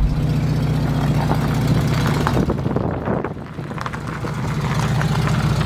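Volkswagen Golf Mk2 GTI four-cylinder petrol engine pulling the car along, running a bit lumpy. It drops in level about three and a half seconds in, then picks up again.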